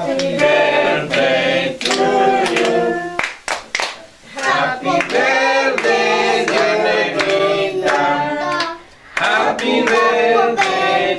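A group of adults and children singing together, with hand clapping in time.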